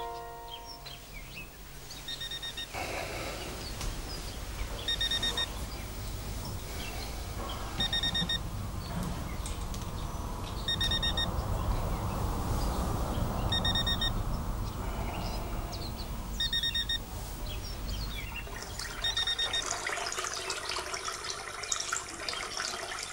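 Digital alarm clock beeping: bursts of rapid high-pitched beeps that repeat about every three seconds, over a steady rushing background noise.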